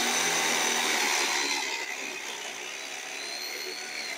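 DeWalt DWD520 10-amp corded drill running at its fast speed, about 3,500 RPM, with a high motor whine as a 1.5-inch spade bit bores through a 2x4. The sound is loudest at first and gets somewhat quieter about two seconds in.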